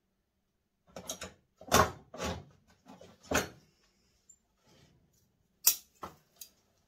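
Metal bonsai scissors handled and snipping spruce shoots: a run of sharp clicks and clatters, loudest about two seconds in, then three quick snips near the end.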